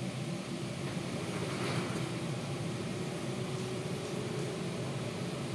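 A steady mechanical hum with a low drone and a faint higher tone running under it, with no clear change.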